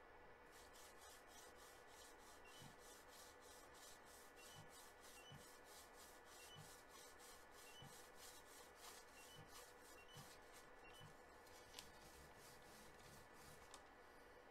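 Faint rubbing of a sheet of plain paper slid back and forth between a 3D printer's nozzle and heat bed, in regular strokes about three a second, over a faint steady hum. This is the paper test for setting the nozzle's Z offset: the stroke is felt for the point where the paper begins to grip.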